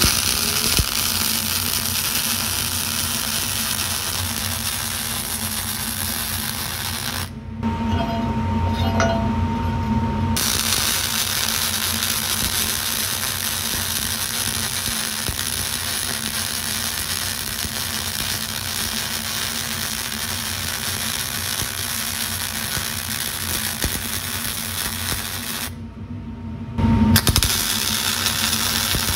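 MIG welder arc crackling and sizzling steadily as a bead is run, with spatter. The arc breaks off twice, about seven and twenty-six seconds in, before starting again.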